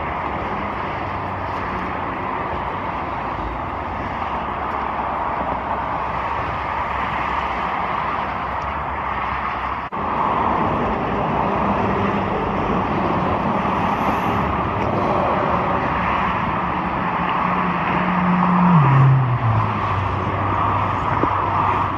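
Steady highway traffic noise rising from below. Near the end, one vehicle's hum holds a steady pitch, then drops sharply as it passes beneath.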